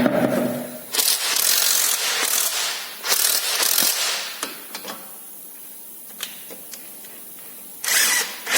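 Pneumatic impact wrench hammering in three short bursts, a longer one about a second in, another about three seconds in and a brief one near the end, working to break loose a tight fastener.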